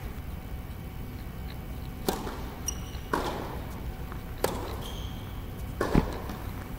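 Tennis rally on an indoor hard court: four sharp hits, racket strikes and ball bounces about a second apart, echoing in the large hall, the last the loudest.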